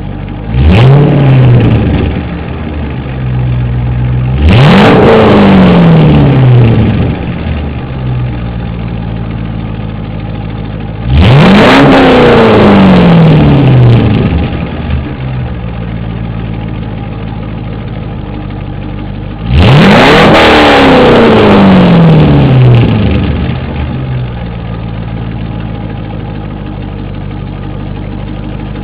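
A Corvette V8 with straight-pipe exhaust, no mufflers and high-flow cats, idling between revs. It is revved four times: a short blip about half a second in, then three longer revs, each held a couple of seconds and much louder than the idle, before falling back to idle.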